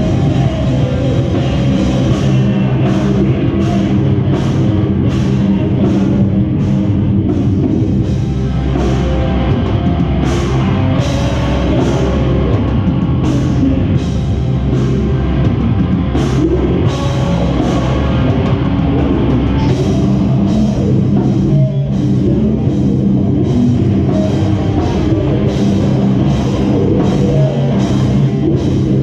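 Live metalcore band playing loud, continuous heavy music: electric guitars and bass over a drum kit, with frequent cymbal crashes.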